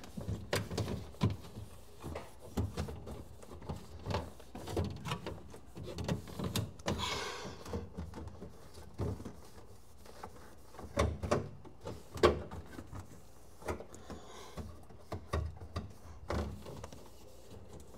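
Irregular knocks, clicks and taps of food and containers being handled and set down in a refrigerator, with a brief rustle of a plastic bag about seven seconds in.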